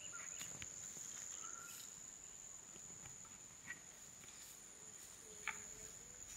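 Faint insect calling in one steady high-pitched note, with a few soft clicks and a sharp tick about five and a half seconds in.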